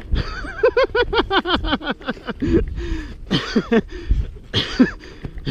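A person laughing: a quick run of ha-ha bursts through the first two seconds, then a few more chuckles.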